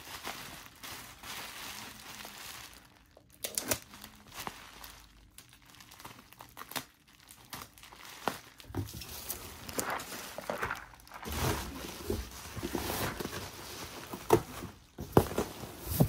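Bubble wrap and plastic packaging being handled, crinkling and rustling irregularly, with a few sharp knocks and dull thuds in the second half.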